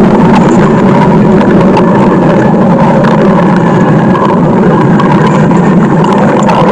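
Stomach growling: a loud, continuous low rumble that runs without a break.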